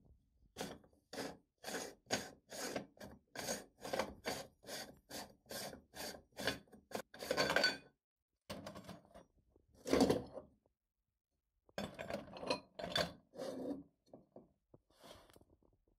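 Metal meat grinder being taken apart: its threaded retaining ring is unscrewed in short turns, metal rasping on metal about twice a second. Then come a few louder scrapes as the cutting plate and the auger are pulled out.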